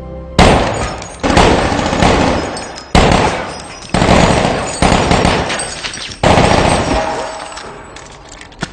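A series of about eight loud gunshots, each sharp report followed by a long fading echo, coming every second or so.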